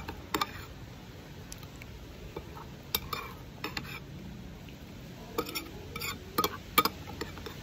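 Metal spoon stirring and scraping thick açaí in a glass bowl, clinking sharply against the glass a dozen or so times at irregular intervals, most often in the second half.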